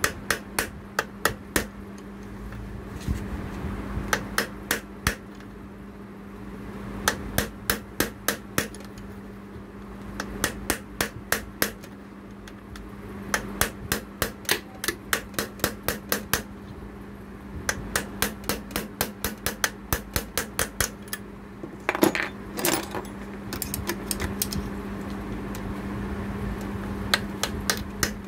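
Hammer taps, metal on metal, driving the old needle bar bushing out of a Juki industrial sewing machine head. The taps come in quick runs of about four a second with short pauses between runs, and there are two heavier blows about three quarters of the way through.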